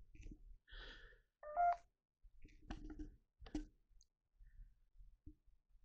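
Electronic beep from a phone's ghost-hunting meter app: a short two-note chirp, low then higher, about a second and a half in, which here means the meter is going off. It is followed by a few sharp clicks and knocks of the phone being handled.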